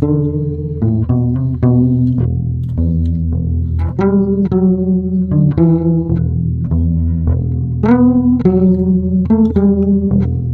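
Background music: plucked guitar notes over a steady, deep bass line.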